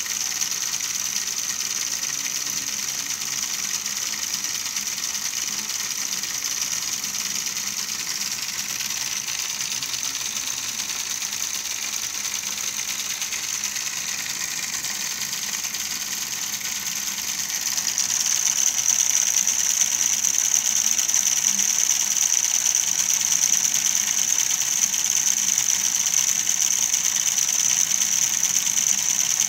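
The geared mechanism of a homemade model combine harvester running steadily, a continuous high-pitched whine from its small motors and gears. It gets louder about eighteen seconds in.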